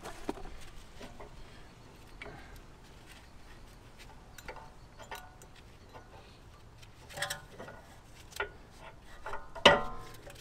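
Light metallic clicks and taps as worn rear brake pads are worked out of the caliper bracket. A few louder clicks come about seven to eight seconds in, and a louder ringing metal clink near the end.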